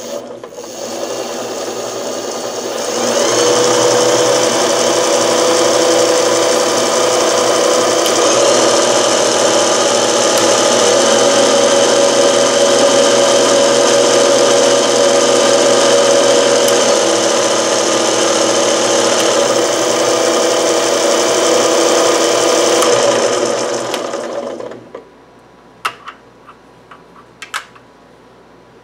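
Car alternator converted to a three-phase electric motor, run off three 12-volt batteries in series through a controller, spinning its belt drive and jackshaft with no load, since the chain to the rear wheel is not fitted. It starts about a second in, steps up louder about three seconds later and runs as a steady whine and hum of several tones. It shuts off near the end and winds down, followed by a few sharp clicks.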